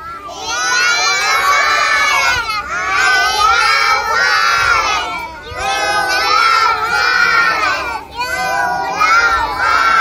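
A group of young children shouting together in chorus, in about four long phrases with short breaks between them.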